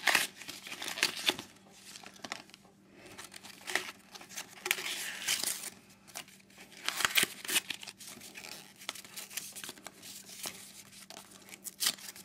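Protective packaging wrap being torn and pulled off a new BMX bike's frame, crinkling and ripping in several irregular bursts.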